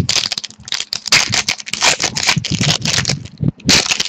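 Trading-card pack wrapper being torn open and handled: a dense run of irregular crinkling, crackling and scraping.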